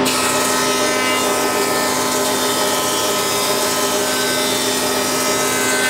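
Thickness planer running steadily as squared timber is fed through to plane it down to width: an even machine noise with several held hums and no change in level.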